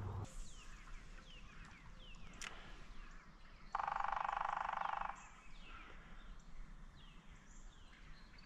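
Birds calling in short falling chirps throughout, with a single click about two and a half seconds in. A spinning fishing reel is cranked with a loud whir lasting about a second and a half, starting and stopping abruptly near the middle.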